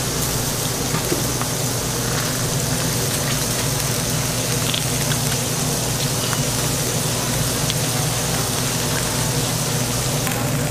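Steady hiss of food sizzling on a steel flat-top griddle, over a constant low hum.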